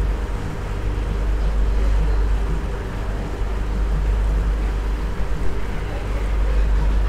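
Passenger boat's engine running steadily under way: a constant low drone with steady hum tones and an even rush of noise over it.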